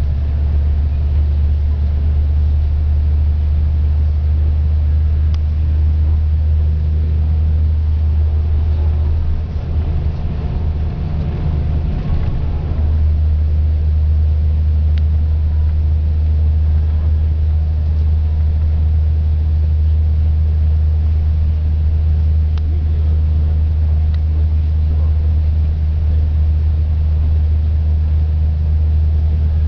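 Coach's engine and road noise heard from inside the passenger cabin: a steady low drone that weakens for a few seconds about ten seconds in, then returns.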